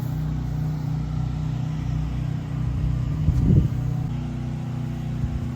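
An engine running steadily, a low drone with a brief louder swell about three and a half seconds in.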